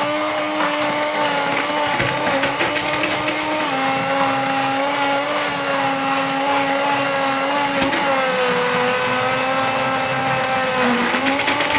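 Immersion blender running in pancake batter in a plastic jug, re-mixing it after a rest: a steady motor whine that dips slightly in pitch a few times.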